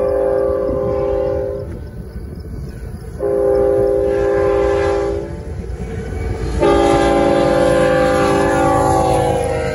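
Air horn of a CN GE ES44AC diesel locomotive sounding long blasts for a grade crossing as its intermodal train approaches at speed, with the rumble of the train underneath. The first blast is ending at the start, a second follows, and the last is held and drops in pitch as the locomotive reaches the crossing.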